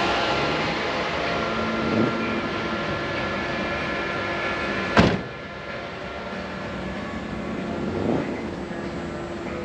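Steady mechanical hum of running machinery, with a sharp knock about five seconds in, after which the hum is quieter.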